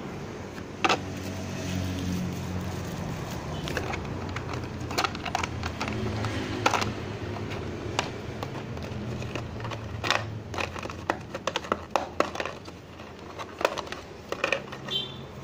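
Plastic clipper attachments and a moulded plastic packaging tray being handled: short clicks and taps, a few at first and coming thick and fast in the second half, over a steady low hum.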